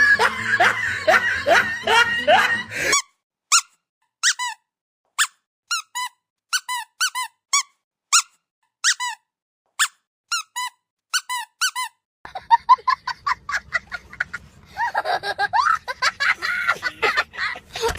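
Comic squeak sound effect: a run of short, high squeaks, each a quick separate chirp, about two a second. It begins after a few seconds of busier pitched sound, and near the end the squeaks crowd together into a denser, chattering stretch.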